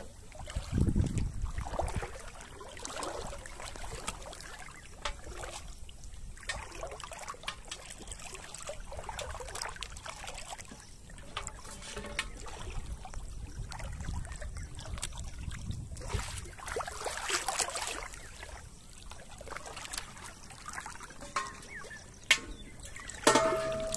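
Shallow pond water sloshing and trickling around a person wading, with small irregular splashes and drips. A brief pitched call sounds near the end.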